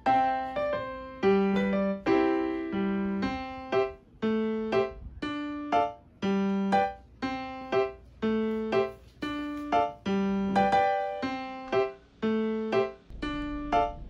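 Background piano music: a melody of struck notes, each ringing and fading, at a steady, even pace.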